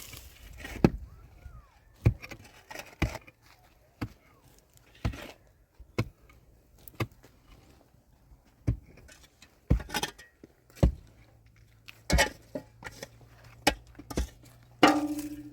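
Repeated sharp blows of a tool striking wood, about one a second with uneven gaps. Near the end a louder strike is followed by a brief steady tone.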